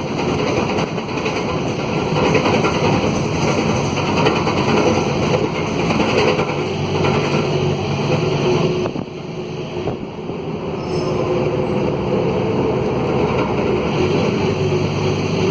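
Mercedes-Benz OM904LA four-cylinder turbo-diesel of a midibus running under way, heard from aboard, loud with the excess noise of a broken exhaust. The noise drops for a moment past the middle, then picks up again.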